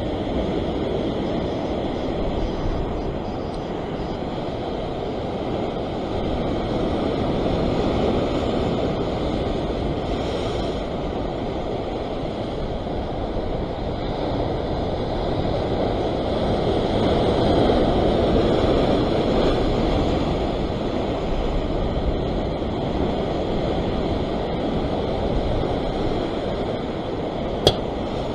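Ocean surf breaking and washing over rock ledges: a steady rush of churning water that swells louder and eases as sets come in. One sharp click sounds near the end.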